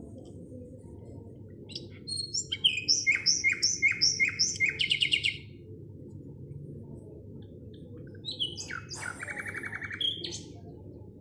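A small songbird singing: a fast series of repeated chirps about two seconds in lasting some three seconds, then a second burst of chirps near the end.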